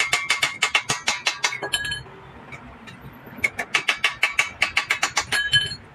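Small hammer tapping rapidly on a brass radiator filler neck, about seven strikes a second, each with a bright metallic ring. The tapping comes in two runs, broken by a pause of about a second and a half near the middle.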